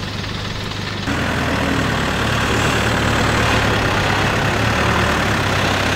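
Pickup truck engine running steadily under load as the truck crawls up a steep, rutted dirt slope, getting louder about a second in.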